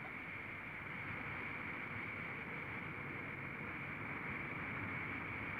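Experimental half-scale Aerotrain (tracked air-cushion vehicle) running, a steady rushing noise with a thin high whine, slowly growing louder.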